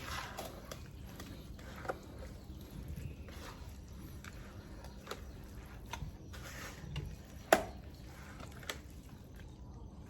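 Leftover porridge and rice being mixed by hand into poultry feed: soft wet squelching and stirring, with a few sharp knocks, the loudest about three quarters of the way through.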